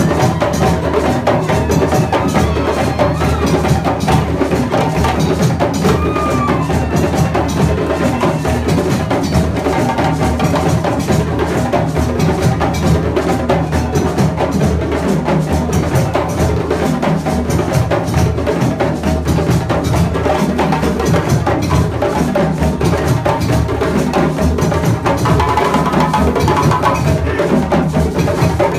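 Several djembe hand drums played together in a fast, continuous West African rhythm, a dense stream of sharp slaps and open tones with no break.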